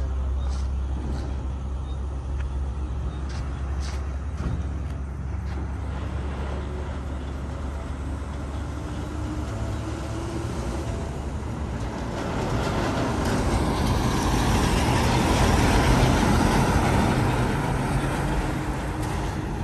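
Motor vehicle noise: a steady low rumble, swelling about twelve seconds in to its loudest a few seconds later, then easing off near the end.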